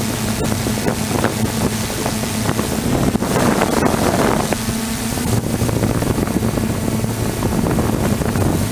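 DJI Flame Wheel 450 quadcopter's motors and propellers humming steadily in flight, heard from a camera mounted on the frame, with wind buffeting the microphone. A louder rushing swell comes about three seconds in and lasts over a second.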